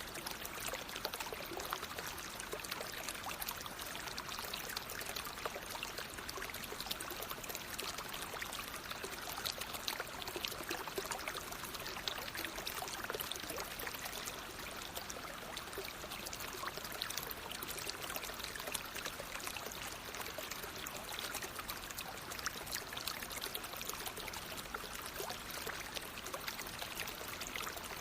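Stream water flowing steadily: an even, continuous rush thick with small splashes.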